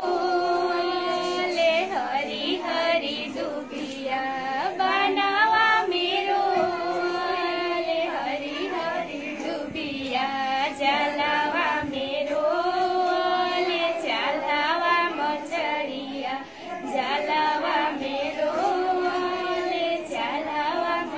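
A young schoolgirl singing a traditional Bhojpuri folk song in a sweet, high voice, drawing out long held notes that waver and glide between pitches.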